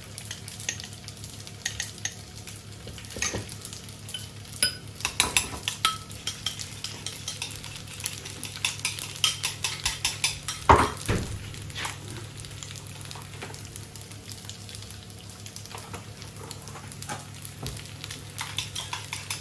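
A metal spoon clinking and scraping against a glass jar and ceramic bowl as grated parmesan and egg yolk are mixed, then scraped onto tagliatelle in a frying pan. There is a quick run of clicks in the middle and one louder knock a little before halfway, with lighter scraping after it. A low steady hum sounds throughout.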